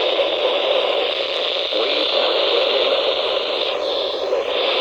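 Weather-band radio receiver hissing with heavy static on a weak, fading NOAA Weather Radio signal picked up at long range, with a faint broadcast voice buried in the noise.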